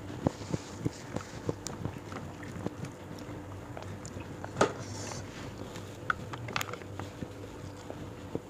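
Close-miked chewing and mouth clicks of a person eating, with soft clicks of fingers working rice on a plate; a single sharp click about four and a half seconds in is the loudest sound.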